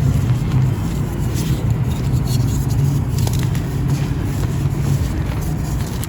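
Dry chunks of pressed marble powder being crushed and crumbled close to the microphone: a steady, dense, low crunching with faint crackles throughout.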